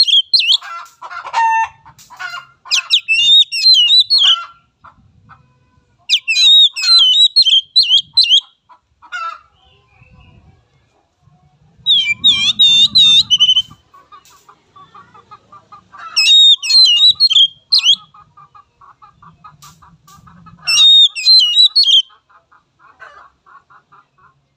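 Oriental magpie-robin singing loud, varied whistled phrases in five bouts of about two seconds each, with short gaps between them. A lower, rapid chattering runs under the second half.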